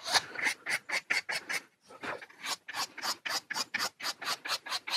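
A fine file rasping back and forth on the rosewood handle of a hand plane, in quick even strokes about five a second.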